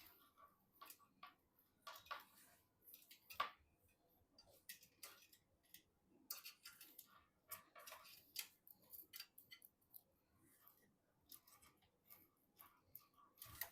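Faint, irregular clicks, snips and rustles of hands working on PC hardware: small plastic and metal parts and packaging being handled.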